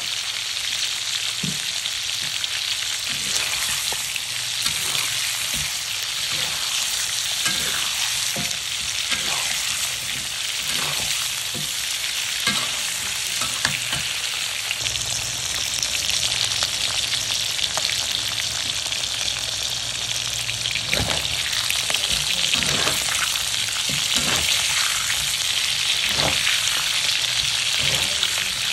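Chicken pieces with garlic and ginger frying in hot oil: a steady sizzle with scattered crackles and knocks from stirring.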